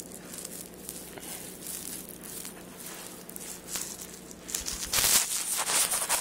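Light scratching and rustling of a dog moving on a woven carpet. About five seconds in, a much louder rubbing and rustling starts right at the microphone as the dog's body presses against the phone.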